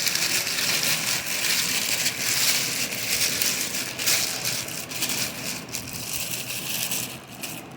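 Plastic bag crinkling and rustling in continuous, uneven crackles as it is handled and unwrapped.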